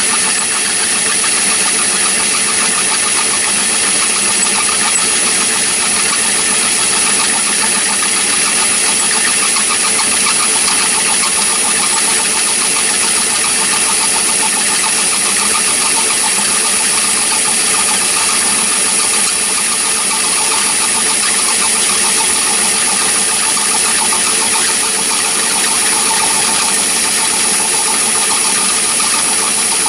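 Myford ML7 lathe running steadily with the four-jaw chuck spinning while a boring bar feeds into the workpiece: an even mechanical hum of motor, belts and gears with a constant high-pitched whine.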